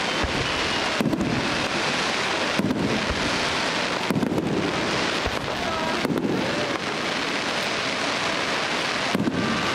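Fireworks display going off: a dense, continuous crackle, dipping briefly about every one and a half seconds.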